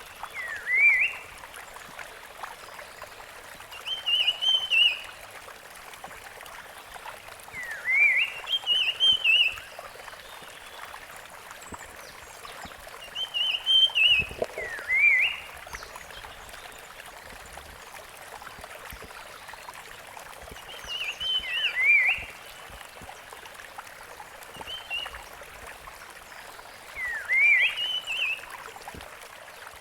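Rusty-fronted Barwing singing: a short phrase of quick high notes ending in a note that dips and rises again, repeated about seven times every few seconds, over a steady background hiss.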